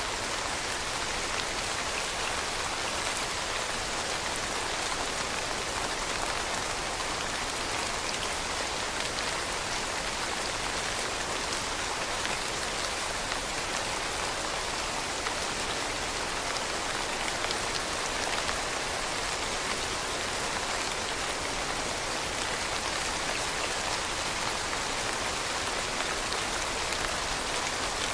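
Rain falling steadily on leaves, an even patter with countless small drop hits and no change in strength.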